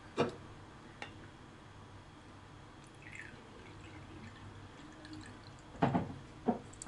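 White rum trickling from a glass bottle into a small measuring jigger, faint and steady. There is a sharp click near the start and two sharp knocks near the end.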